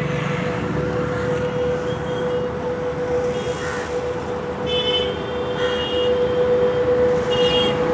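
Three short high-pitched horn toots, about five, six and seven and a half seconds in, over steady outdoor background noise and a constant hum.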